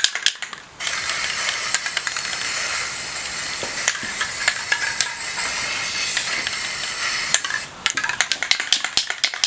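Aerosol can of black spray paint spraying in one long steady hiss for about seven seconds, then a quick run of rattling clicks near the end.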